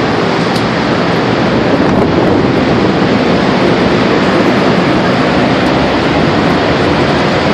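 Loud, steady rush of an EF5 tornado's winds at close range, with wind buffeting the microphone.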